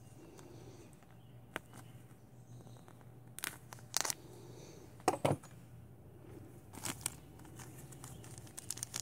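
Small plastic parts bag crinkling as it is cut with a folding knife and pulled open by hand, in a few short sharp rustles, the loudest about five seconds in.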